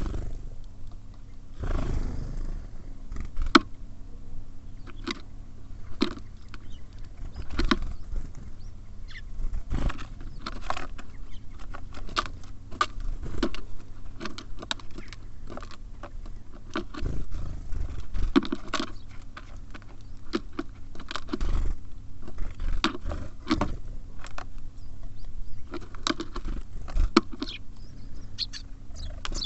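Small birds pecking and tapping at seed on a bird feeder, close to the microphone: irregular sharp taps and clicks with dull thumps of birds landing and hopping, over a faint steady low hum.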